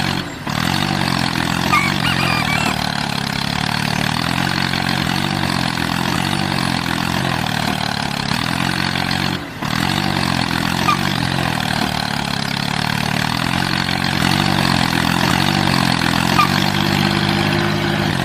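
A vehicle engine idling with a steady, even throb. It drops out briefly twice, near the start and about halfway through.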